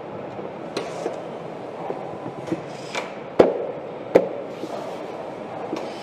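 Factory assembly-hall noise: a steady background din with scattered sharp clicks and knocks of parts being handled, the two loudest knocks about three and a half and four seconds in.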